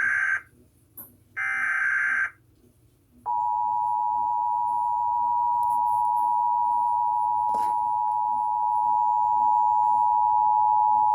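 Emergency Alert System tones: two short bursts of the SAME digital header, then, about three seconds in, the steady two-tone EAS attention signal. Together they announce an EAS message, here a statewide required monthly test.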